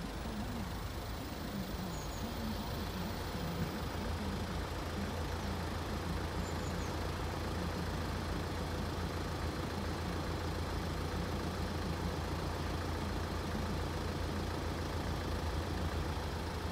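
Small van's engine idling steadily close by, a low even hum.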